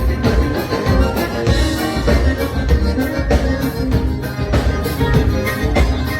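Live gaúcho dance band playing an instrumental passage between sung verses: accordion over electric bass and a drum kit keeping a steady dance beat.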